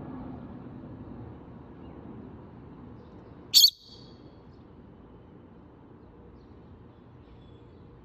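Rosy-faced lovebird giving one short, shrill call about three and a half seconds in, over a faint steady background rumble.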